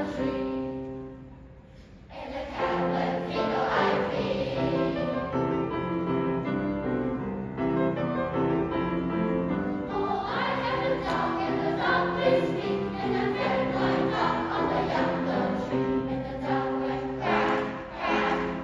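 Children's choir singing in harmony, with a brief lull about two seconds in before the full choir comes back in.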